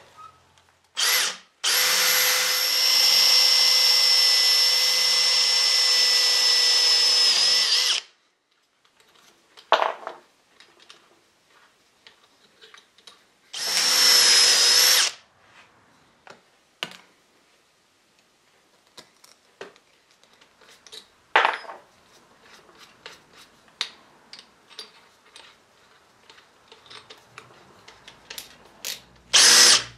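Makita cordless drill running in bursts while boring out a broken wooden dowel: a brief blip, a steady run of about six seconds, then a run of about a second and a half, and a short blip about two-thirds of the way in. Between the runs come small clicks of the drill's keyless chuck being worked by hand to change the bit.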